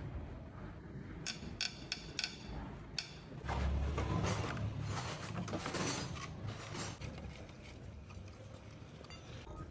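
Metal clinks and knocks of engine parts and hand tools being handled, with a low rumble for a couple of seconds in the middle.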